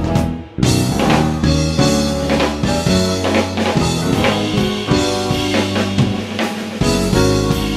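Instrumental jazz-fusion band music: a drum kit with bass drum, snare and cymbals under several keyboards, synthesizers and organ, playing a busy chordal passage. The band stops abruptly for a fraction of a second about half a second in, then crashes back in together.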